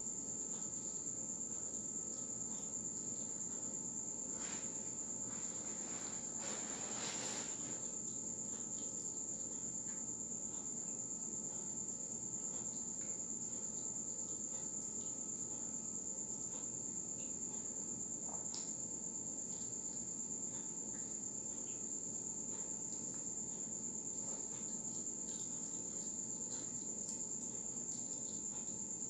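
A steady high-pitched whine, unbroken throughout, over low background noise. About seven seconds in comes a short crunch as a crisp fried turon is bitten.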